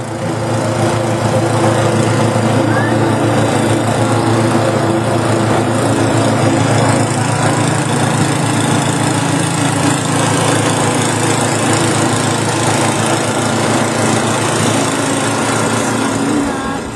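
Snow blower's small gasoline engine running steadily under load, with a constant low hum of the motor over a loud noise of the machine.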